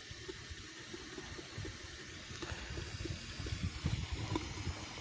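Live steam model locomotive running, with a steady hiss of steam and an irregular low rumble that grows a little louder about three seconds in.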